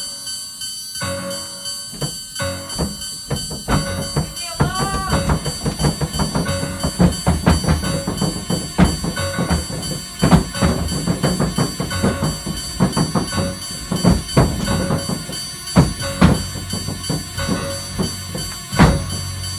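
Tense film score: sparse at first, then fast, repeated percussive hits over a held note, growing louder a few seconds in.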